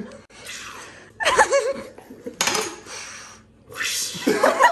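People laughing: four breathy, wheezing bursts of laughter with short voiced peaks, the loudest about a second in and near the end.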